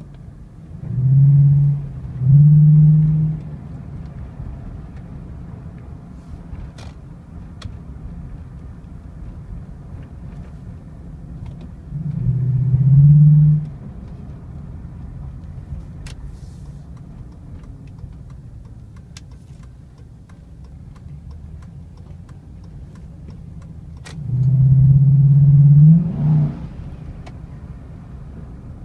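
Chevy 5.3L V8 with a cold air intake, heard from inside the cab while driving: a steady low rumble at cruise, broken by bursts of acceleration in which the intake roar swells and the engine note rises in pitch. There are two quick stabs about a second in, one around the middle and a longer pull near the end.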